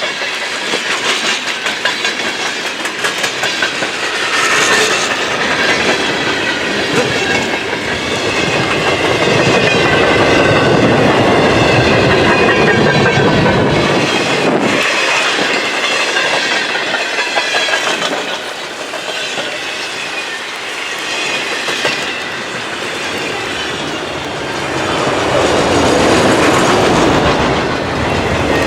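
Freight cars of a long manifest train rolling past at close range: a continuous rumble with steel wheels clattering over the rail joints and faint high squealing tones from the wheels, swelling louder in the middle and again near the end.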